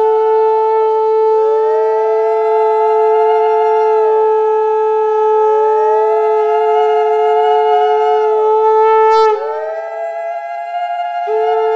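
Several conch shells (shankha) blown together: one holds a steady note while others slide up in pitch, hold and fall away in long blows. The steady note breaks off for about two seconds near the end, then comes back.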